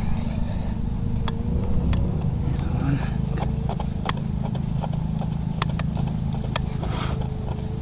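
Garden spade rocked quickly back and forth while driven deep into moist soil, vibrating the ground to bring earthworms to the surface: a steady low rumbling with scattered sharp clicks.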